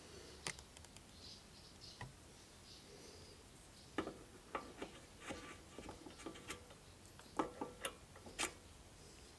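Faint metallic clicks and light knocks, most of them in the second half, some ringing briefly: a steel V-belt pulley being worked back and forth by hand on an engine's crankshaft, where it binds and will not slide on freely.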